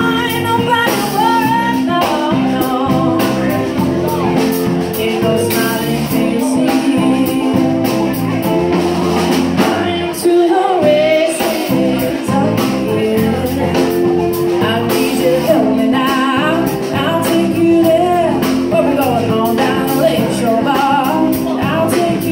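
Live band playing a song: a woman singing over acoustic guitar, electric guitar and a drum kit.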